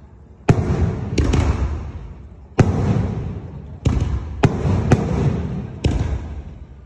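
Barrage of mortar-fired salute shells: about eight sharp bangs in quick, uneven succession, a few close together, each trailing off in a long rumbling echo.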